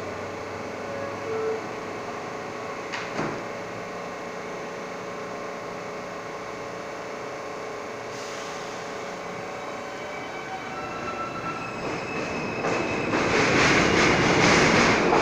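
R179 subway train standing at the platform with a steady hum, then pulling out: a sharp knock about three seconds in, the doors shut around eight seconds, and near the end motor tones step up as the wheel and car noise grows loud.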